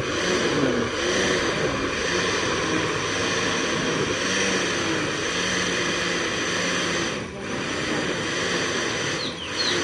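Electric countertop blender running, its motor churning a jug of carrots into juice. The sound dips briefly twice in the second half.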